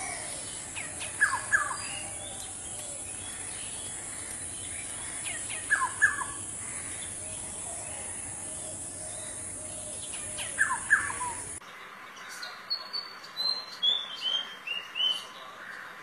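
Black-hooded oriole calling three times, about four to five seconds apart, each call a pair of quick falling whistled notes. Then, after an abrupt change in the recording, a white-throated fantail sings a run of about six short, high whistled notes stepping down in pitch.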